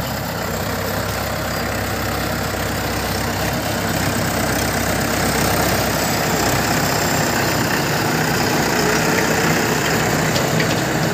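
Mahindra 575 DI tractor's four-cylinder diesel engine running steadily at low speed.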